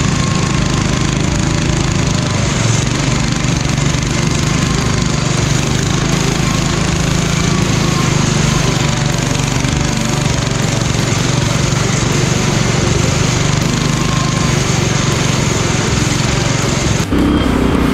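Modified riding lawn mower's small engine running steadily on an off-road trail. Near the end the sound changes abruptly to a different engine note.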